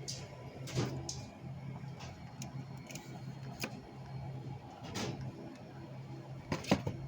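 Shop room tone: a steady low hum with scattered light clicks and knocks, and two sharper knocks near the end.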